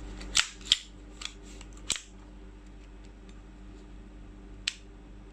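Sharp clicks and clacks of a VFC Sig M17 gas blowback airsoft pistol's slide being drawn back and handled. There is a quick cluster of about four clicks in the first two seconds, then a single click near the end.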